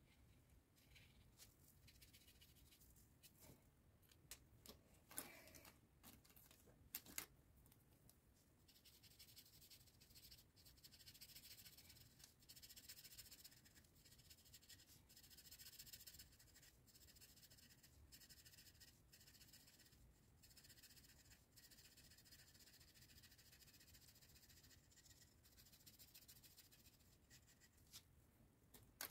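Faint scratchy hiss of a felt-tip marker being rubbed back and forth over paper while colouring in. A couple of sharp clicks come about five and seven seconds in.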